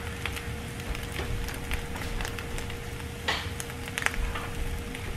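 Scrambled eggs sizzling in a Gotham Steel nonstick frying pan on an electric stove, with frequent small crackling pops, as they sit and brown on the underside. A faint steady hum runs underneath.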